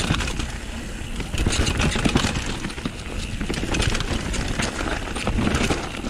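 Downhill mountain bike rolling fast over a rough dirt-and-rock trail: steady tyre and ground noise with a low rumble, and constant rattling and clicking of the chain and bike parts over the bumps.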